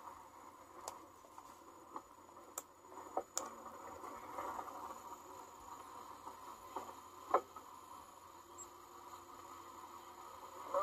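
Faint steady hiss with about half a dozen short, scattered clicks and taps, the loudest a little past the middle.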